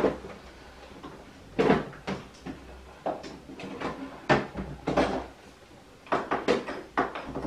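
Irregular knocks and clunks from handling an aluminium snake rack during assembly, a sharp knock every second or so.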